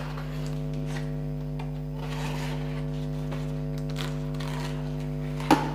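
Steady electrical hum with faint rustling and handling as the mixer grinder's packaging is opened, and a sharp click near the end.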